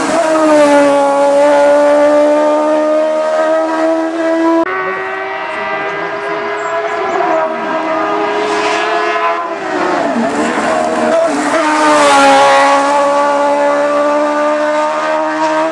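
Hillclimb race cars' engines running hard at high revs. An abrupt change to a second car comes about five seconds in, and near the middle the engine note drops and then climbs again through a gear change.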